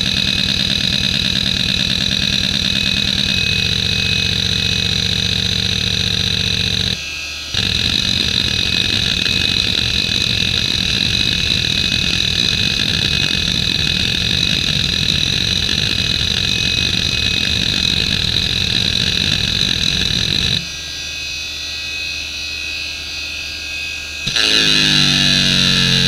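Samsung WN310820A hard drive's heads seeking rapidly back and forth under the hdmotion test, a continuous fast buzzing chatter over the high whine of its Nidec spindle motor. The seeking stops briefly about seven seconds in and again for a few seconds around twenty seconds in. Near the end it changes to a sweeping seek pattern as the Speedsys seek benchmark starts.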